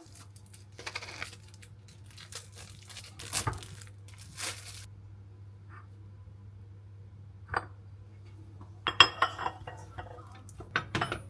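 Crinkling and tearing of plastic food packaging, with a few light clinks, in scattered bursts and a loudest cluster near the end, over a steady low hum.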